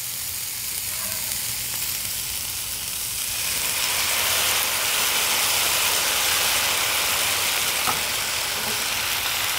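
Vietnamese rice-flour crepe batter sizzling in a hot oiled skillet over frying meat and shrimp filling; the sizzle swells about three and a half seconds in as more batter hits the pan. This is the sizzling that gives bánh xèo its name, the sound the cook is looking for.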